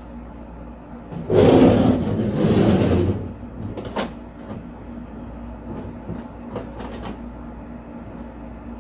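Rubbing and scraping of a spirit level being handled and set against a wall-mounted towel rack, a noisy scrape lasting about two seconds, then a few light taps, over a steady low hum.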